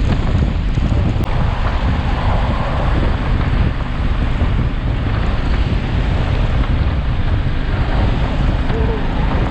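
Heavy, steady wind noise buffeting the microphone, as from a camera riding on a moving motorcycle.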